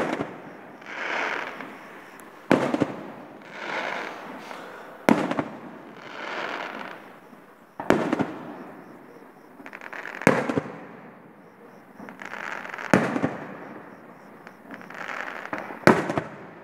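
Aerial firework shells bursting overhead in a sharp bang about every two and a half seconds, six in all. Between the bangs a hiss swells and fades.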